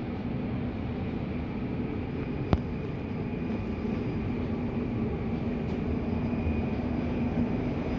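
Singapore MRT North East Line train approaching through the tunnel: a steady rumble with a low hum that grows slowly louder, and a single sharp click about two and a half seconds in.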